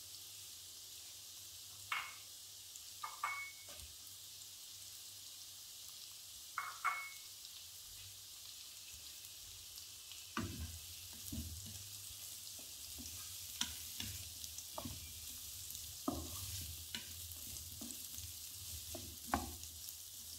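Chopped vegetables sizzling in oil in a non-stick wok. There are a few soft knocks in the first half as more pepper strips go in, then a wooden spatula stirs and taps against the pan through the second half.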